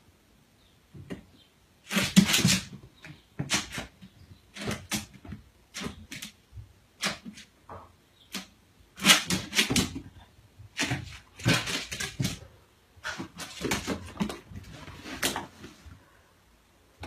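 A puppy barking at its own reflection in a mirror: about fifteen short, sharp barks at irregular intervals, stopping shortly before the end.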